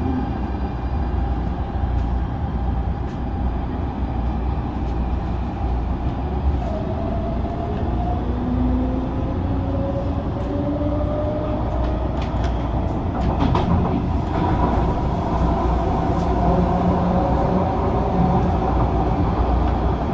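CAF-built MTR Tung Chung line electric train running on the track, with a steady low rumble of wheels on rails. A faint motor whine rises slowly in pitch through the middle as the train picks up speed, and a few sharp clicks come near the end.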